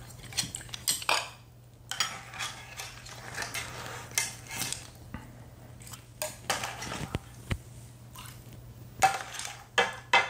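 Ceramic bowls, spoons and a wooden ladle clinking and knocking against dishes and a stainless steel pot as stew is ladled out into bowls: a run of short sharp clinks, the loudest few near the end.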